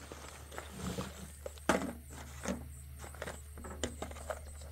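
Rummaging through a fishing tackle bag: irregular clicks and knocks of lures and tackle being moved about, the loudest just under two seconds in.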